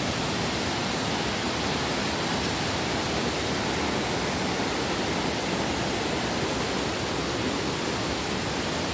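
Mountain stream and small waterfall rushing over boulders: a steady, unbroken rush of water.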